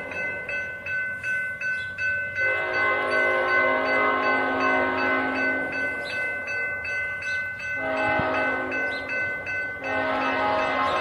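Locomotive air horn sounding a multi-note chord in long blasts: one ends just at the start, a long blast of about five seconds follows, and another begins near the end. Under the blasts a bell rings rapidly, about four strokes a second.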